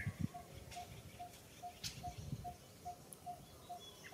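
A single short note repeated evenly, about two and a half times a second, like an unseen bird's call in the trees, with a few faint clicks and low rustles among the branches.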